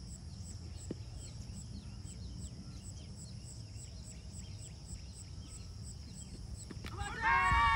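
Faint high insect chirping, about three chirps a second, over a steady low rumble. Near the end a player on the cricket field gives one loud, drawn-out shout whose pitch rises and then falls, just after the ball is bowled.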